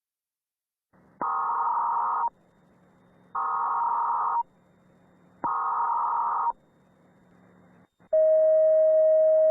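Emergency Alert System broadcast tones: three one-second bursts of SAME header data tones, about a second apart, starting about a second in. Near the end a single steady alert tone begins and holds.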